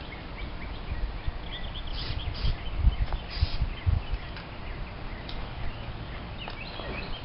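Short hisses of an aerosol can of starting fluid sprayed around a tire's bead, with a few dull thumps about two to four seconds in and birds chirping.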